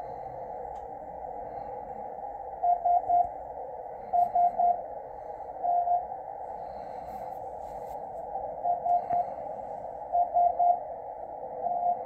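Morse code beacon on 10551 kHz CW received on a Yaesu FTdx10: a keyed tone sending the letters SST (dot-dot-dot, dot-dot-dot, dash) twice. The tone sits over steady band hiss narrowed by the receiver's CW filter.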